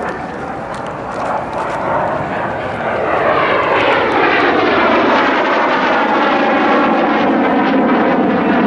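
Kawasaki T-4 jet trainer flying past low and close, its twin turbofan engine noise swelling about three seconds in. As it passes, the pitch sweeps downward.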